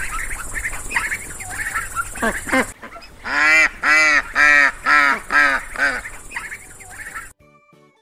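Wild ducks calling: first a busy chatter of overlapping calls from several birds, then about three seconds in a run of about eight loud quacks, which cut off suddenly near the end.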